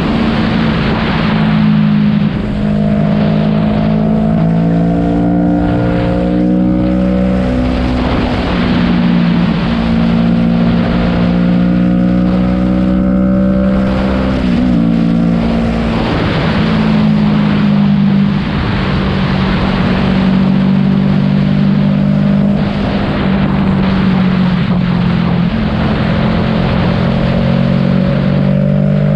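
Motorcycle engine running while riding at road speed. Its pitch climbs slowly in several stretches and drops back in steps a few times, with wind rushing over the microphone.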